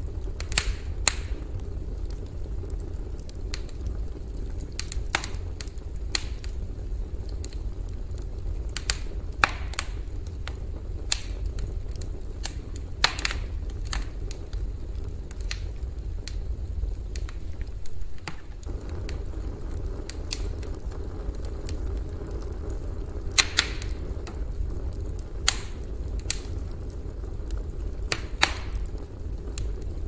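Campfire burning, with irregular sharp crackles and pops from the burning wood and a few louder snaps over a steady low rumble.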